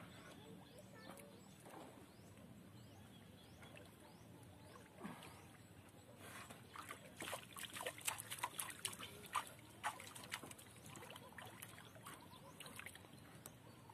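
Water sloshing and trickling around a person wading beside a small boat, with a flurry of small splashes and drips from about six to eleven seconds in.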